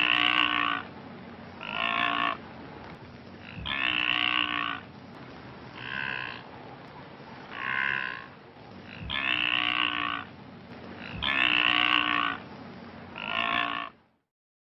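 Blue wildebeest calling: about eight short calls, one every one and a half to two seconds, over a steady background noise. The calls stop shortly before the end.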